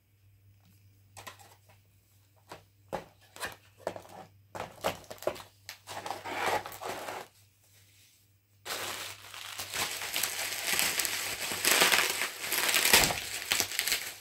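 Bubble wrap and plastic packaging crinkling as they are handled. There are scattered crackles at first, a short pause, then denser and louder crinkling from a bit past the middle on.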